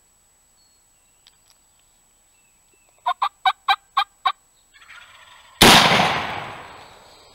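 A turkey calls a quick run of about seven yelping notes. About a second later a single shotgun shot goes off, the loudest sound, echoing and dying away over about a second and a half.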